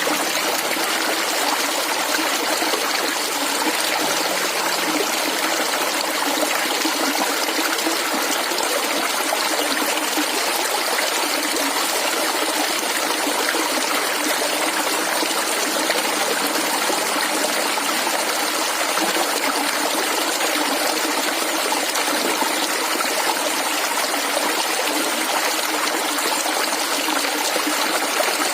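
Shallow stream of clear water flowing and gurgling steadily over stones.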